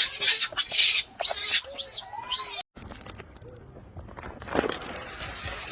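A young monkey giving a run of short, shrill squeals and squeaks, each rising and falling in pitch. About two and a half seconds in it cuts off abruptly, leaving a quieter hiss.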